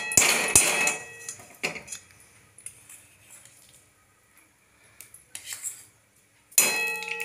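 Metal spoon clattering, scraping and clinking against a kadhai as spoonfuls of Dalda (vanaspati shortening) are knocked into the hot pan, loudest in the first second, with single clinks later. Near the end a louder sound with several steady tones starts.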